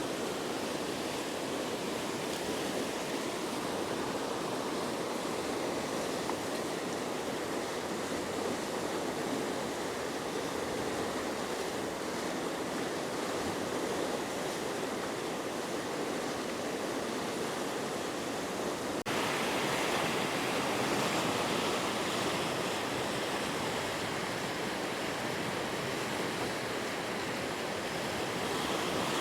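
Steady rush of river water over rapids or a waterfall. About two-thirds of the way through the sound changes abruptly to a slightly louder, hissier rush.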